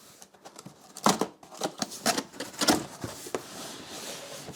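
Cardboard box and packaging being handled as the box is opened: a run of sharp crinkles and knocks, then a steady scraping rustle near the end.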